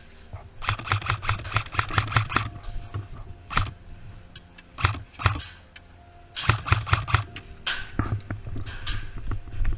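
Airsoft gun firing two bursts of rapid shots, about nine a second, with single shots in between.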